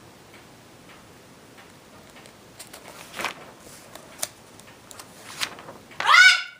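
Glossy magazine pages being turned, two papery rustles with a small click between them, over a faint ticking clock. Near the end comes a short, loud, high-pitched call that rises a little in pitch.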